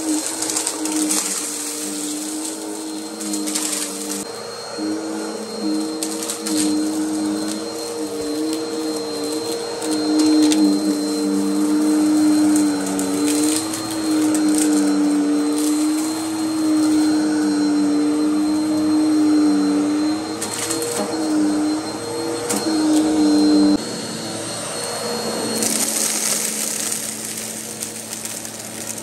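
Vacuum cleaner running and sucking up dirt: a steady motor hum that wavers slightly in pitch, with scattered crackles of grit going up the nozzle. About 24 seconds in, the hum drops to a lower, different tone.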